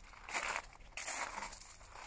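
Footsteps crunching on a loose gravel path, about one step every three-quarters of a second.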